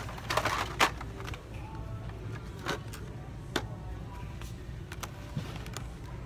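Carded blister packs clattering against the metal peg hooks as they are handled: a quick burst of plastic clicks and rattles in the first second, then a few single clicks, over a steady low hum and faint background music.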